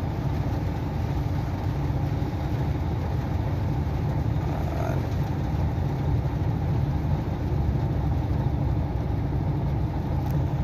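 Truck engine idling steadily, heard from inside the cab as a low, even rumble.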